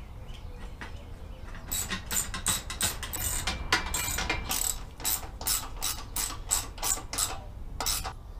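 Hand socket ratchet clicking in quick repeated strokes, about four a second, as a bolt on the truck bench seat frame is turned. It starts about two seconds in.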